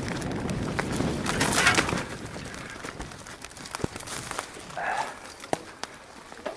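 Bike tyres rolling down a forest trail over leaf litter and twigs, with a noisy rush and rattling clicks that are loudest for the first two seconds and then thin out to scattered ticks and snaps. A short pitched call sounds about five seconds in.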